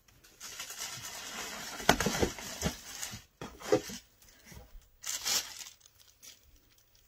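Clear plastic wrapping crinkling and a cardboard box rustling as packed blender parts are pulled out, in irregular bursts with a sharp knock about two seconds in.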